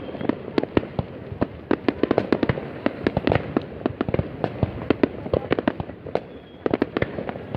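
A New Year's Eve fireworks display going off in a dense, continuous volley of sharp bangs and cracks, several a second, over a steady rumble.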